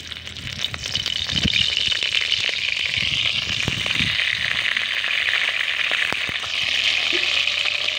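Mud crab pieces frying in hot oil in a kadai: a steady loud sizzle with crackling, and a couple of low thumps as more pieces are dropped in.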